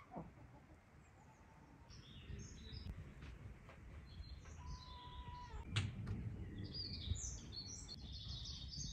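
Small wild birds chirping and twittering, sparse at first and busier over the last few seconds, over a low background rumble.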